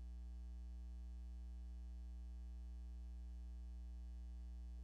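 Steady low electrical mains hum with fainter higher overtones, unchanging throughout, with no other sound over it.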